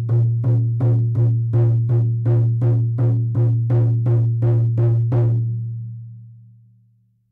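16-inch deer hide hand drum beaten at a steady pulse, a little under three strokes a second, each stroke giving a deep, ringing low tone. About five seconds in the beating stops and the tone keeps on going, fading away over about two seconds.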